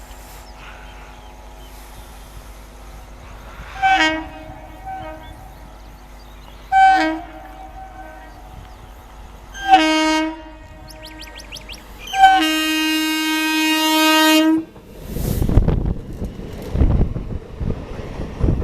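Electric multiple-unit local train sounding its horn: three short blasts a few seconds apart, then one long blast of about two seconds. It is followed by a loud, pulsing rumble and rush as the train runs through.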